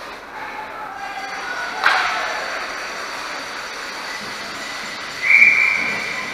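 A short, shrill whistle blast a little past five seconds, the loudest sound here, with a sharp knock echoing through the rink about two seconds in, over a background of spectators' and players' voices.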